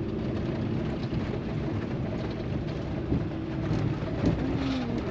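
Cabin noise of a Ram ProMaster van driven fast over a rough dirt road: a steady rumble and rattle from the tyres and body, with the engine pulling as it takes a run at a rise. A couple of sharper jolts stand out a little past three and about four seconds in.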